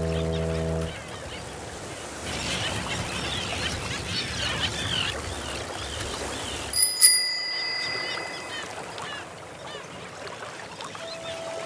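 A ship's foghorn sounds with a steady low tone and stops about a second in, then small birds chirp over a soft outdoor ambience. About seven seconds in, a bicycle bell rings twice, the loudest sound.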